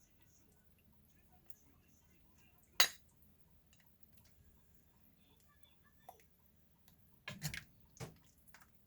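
Sharp clinks of tableware against dishes: a single clink about three seconds in, then a short cluster of clinks and knocks near the end.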